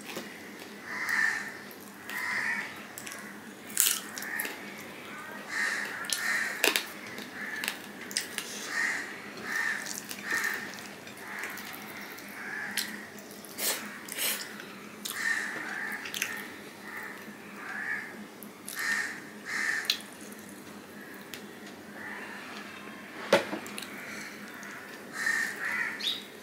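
Close-miked eating sounds: chewing and lip-smacking on a mouthful of rice and chicken curry, with a soft wet mouth sound about once a second. A few sharp clicks come through, the loudest about three seconds before the end.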